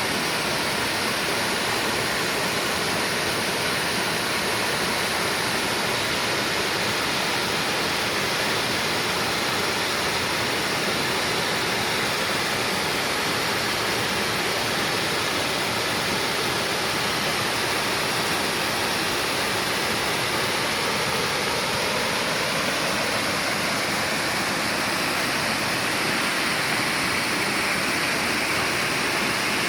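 Mountain valley stream rushing over rocks, a steady, even roar of water.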